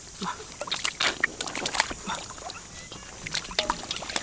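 Shallow muddy water splashing and sloshing as hands grope in a rice-field ditch to grab fish, in a string of irregular short splashes.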